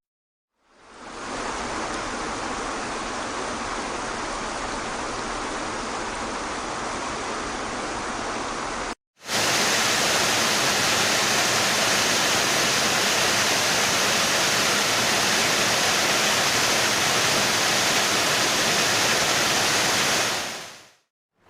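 Waterfall, two recordings of water crashing down in a steady rush. The first fades in and cuts off about nine seconds in. A louder, brighter one follows and fades out near the end.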